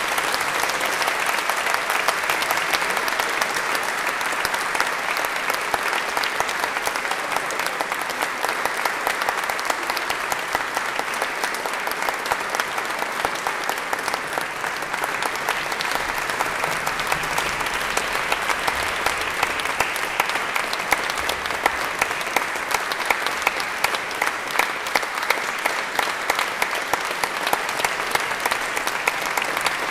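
Audience applauding steadily in a concert hall: a dense, sustained wash of hand claps.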